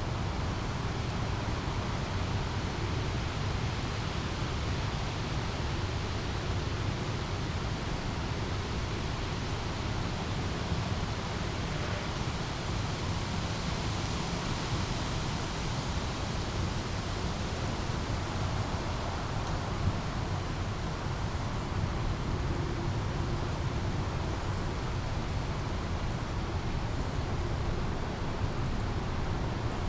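Small brook flowing steadily over a constant low rumble, with a few faint, short high bird chirps in the second half.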